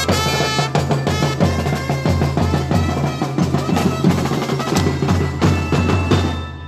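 Drum-driven street-dance music: snare and bass drums keep a busy, steady beat, with a few held melodic notes near the start. It drops off just before the end.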